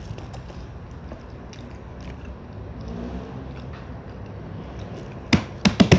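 Close-up chewing and biting of fried saba banana over a steady low hum, with a quick cluster of loud knocks and clacks near the end.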